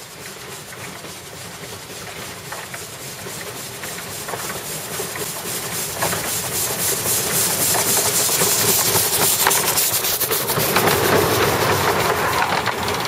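Narrow-gauge steam locomotive running along the line: hissing steam with rapid beats and rail clatter, growing steadily louder.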